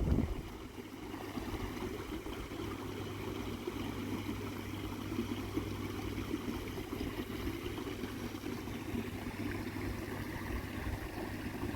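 Steady hum and rush of koi pond filtration: a pump or air blower humming at one low pitch over running water.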